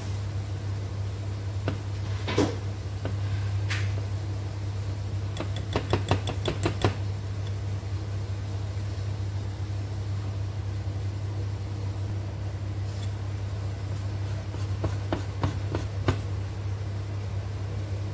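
Wire whisk stirring thick batter by hand, clicking against the side of the bowl. There are a few single clicks, then a quick run of about eight taps a little over five seconds in, and a few more near the end. A steady low hum runs underneath.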